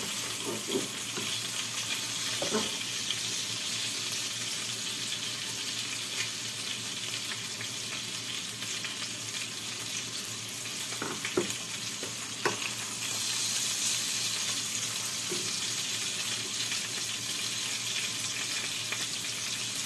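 Whole chicken frying in hot oil in a pan: a steady sizzle, with a few faint knocks about two and a half seconds in and twice around eleven to twelve seconds in.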